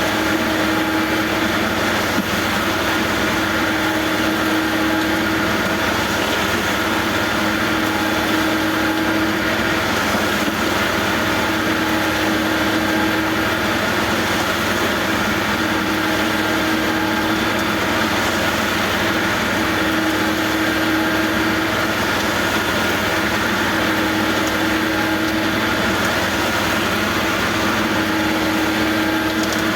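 Construction machinery engine running steadily during a concrete pour, with a hum that swells and fades about every four seconds.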